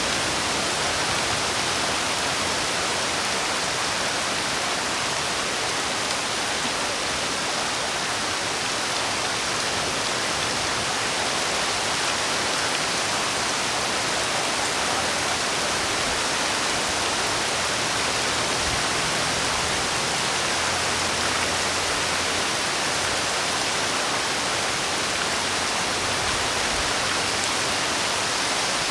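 Steady, even rain, a continuous hiss of falling rain without separate drops or thunder.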